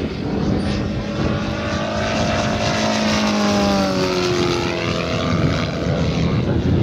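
Engine of a radio-controlled model monoplane flying past, its note falling in pitch as it goes by.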